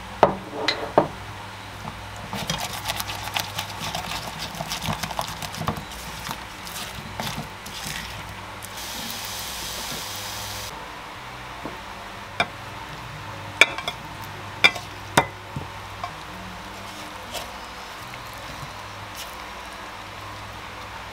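Tomato and scrambled egg being stirred and scraped around a nonstick frying pan with a silicone spatula, with a light sizzle; a brief hiss about nine seconds in, then a few sharp knocks of utensil on pan.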